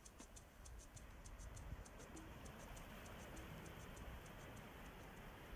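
Faint, rapid, high-pitched ticking, about five ticks a second, over near silence; the ticking stops near the end.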